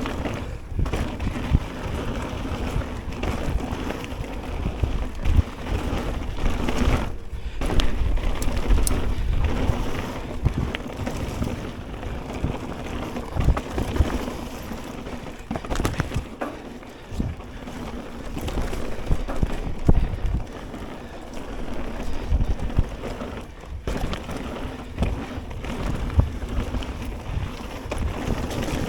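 Ragley BigWig mountain bike riding a trail: tyre noise over the dirt and gravel with frequent knocks and rattles from the bike over rough ground, and wind buffeting the camera microphone throughout.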